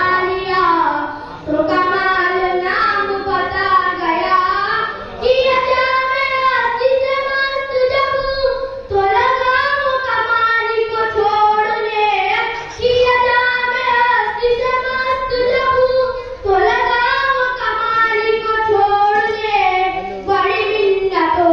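A boy singing a naat, a devotional poem, solo into a microphone without instruments, in held, wavering phrases of about four seconds with short breaks between.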